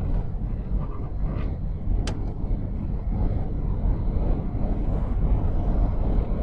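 A car driving along a road: a steady low rumble of road and engine noise, with a single short click about two seconds in.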